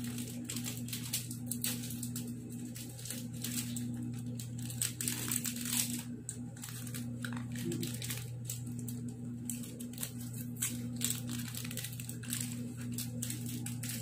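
Chocolate-bar wrapper crinkling as it is opened by hand, in a string of irregular crackles.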